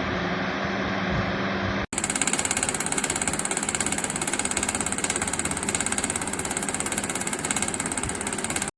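Hurricane 20-inch box fan running, a steady whooshing hum with a low tone. About two seconds in the sound cuts abruptly to a louder run with a fast, even pulsing of the blades, which lasts until the end.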